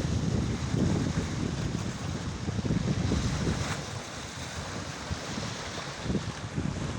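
Strong wind buffeting the microphone in uneven gusts over the steady rush of a rough, stormy sea.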